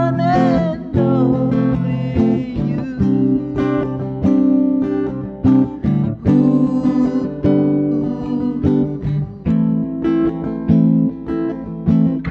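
A man singing and strumming chords on an acoustic guitar, recorded close up on a BM-800 condenser microphone.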